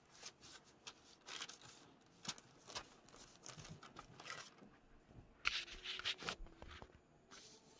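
Microfiber towel rubbing over butcher paper laid on a freshly heat-pressed transfer: faint, irregular rustling and crinkling strokes of cloth on paper, louder for a moment past the middle.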